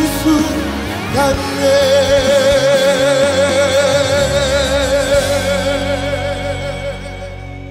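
Male voice singing a ballad, holding one long note with wide vibrato over acoustic guitar and soft accompaniment. The note and the music fade out near the end.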